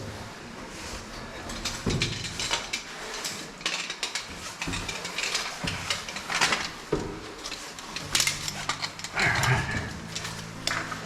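Metal climbing hardware clinking and clicking, with carabiners and rope gear knocking together and rustling as a caver works along the rope.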